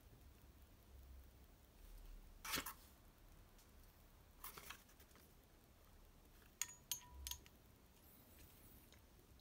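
Near silence with a few small clicks and clinks from handling metal engine parts: one about two and a half seconds in, a softer one a couple of seconds later, and three quick sharp clicks around seven seconds in.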